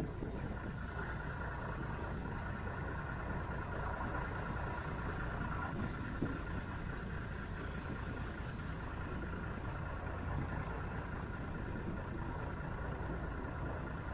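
Steady low drone of a canal tour boat's engine running as the boat cruises.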